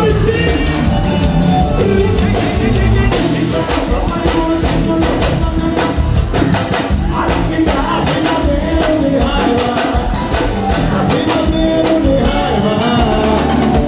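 Live forró band music with a steady drum beat and singing over it.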